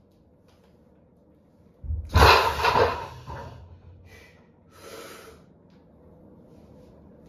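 A barbell loaded with rubber-coated plates is lowered to the floor with a thud about two seconds in, followed by a loud exhale from the lifter. A shorter, quieter breath comes a few seconds later.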